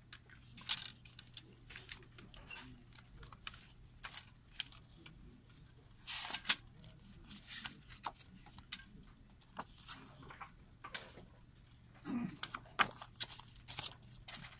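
Handling noise from a plastic Blu-ray case and its paper inserts: scattered clicks and taps of plastic with paper rustling, and longer rustles about six seconds in and again near twelve seconds.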